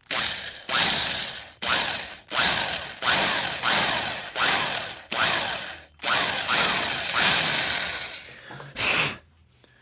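Old electric drill reaming screw holes in a rifle's wooden fore end, run in short trigger pulses about one every 0.7 s. Each pulse spins up and winds down with a falling whine. One longer run lasts about two and a half seconds, and a last short pulse comes near the end.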